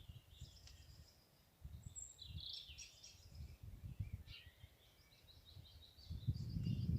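Small songbirds singing and twittering in quick high phrases, with gusts of wind buffeting the microphone that die down in the middle and pick up again near the end.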